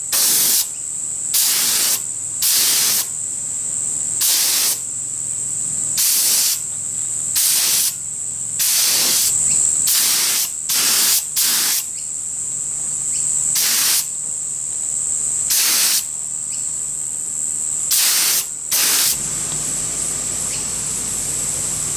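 Air spray gun spraying nitrocellulose lacquer in short trigger bursts of hiss, about fourteen of them, each roughly half a second long, until the spraying stops near the end. A steady high-pitched whine runs underneath throughout.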